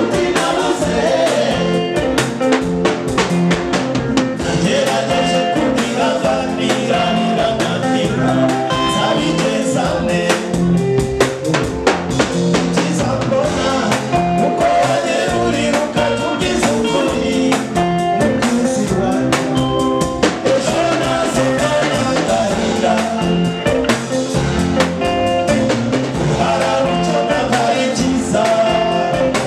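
Live band playing a song: a drum kit keeping the beat with cymbals, under bass guitar and a singing voice.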